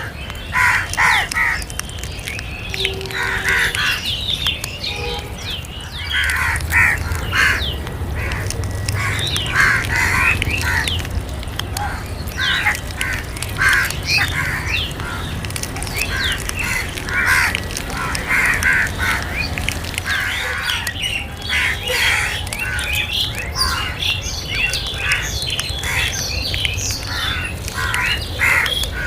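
Crows cawing over and over, several birds calling in quick, overlapping bursts, over a steady low rumble.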